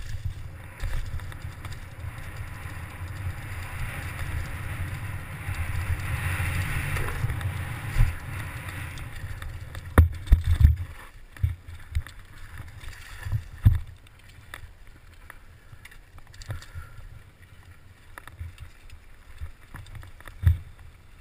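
Downhill mountain bike (a Giant Faith 2) on a dirt descent: wind rushing over the helmet camera and tyres rumbling over dirt, loudest for the first nine seconds. After that it quietens, with scattered sharp knocks and clunks as the bike hits bumps.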